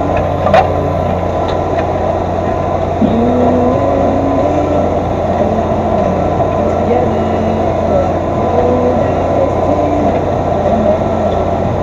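Massey Ferguson 3115 tractor engine running steadily, with a voice talking underneath.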